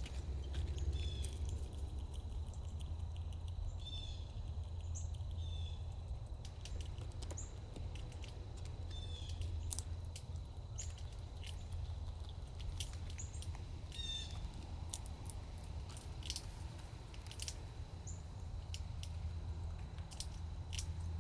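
Small birds chirping in short, repeated calls every few seconds over a steady low rumble, with scattered sharp clicks through the second half.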